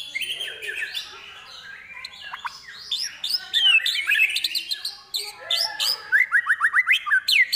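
White-rumped shama singing a fast, varied song of whistles, slurs and chattering phrases, the kind of song filled with mimicked calls of other birds, with a quick run of rising notes near the end.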